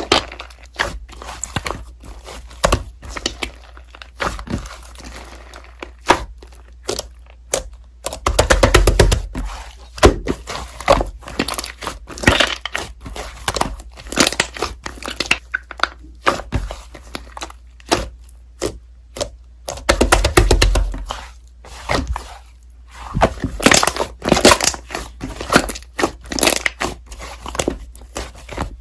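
Slime being squeezed, poked and stretched by hand, giving a dense run of sticky clicks, crackles and pops. The sound grows thicker and louder twice, about eight seconds in and again about twenty seconds in.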